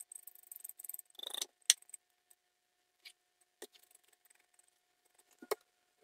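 Knife scraping scales off a parrotfish: rasping scraping for the first second and a half, then a few separate sharp clicks and taps.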